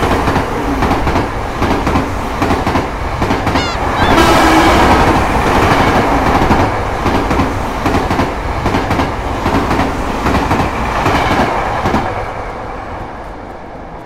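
Passenger train passing over a level crossing: a loud, steady rumble with a rapid clatter of wheels over the rails. It fades away after about twelve seconds.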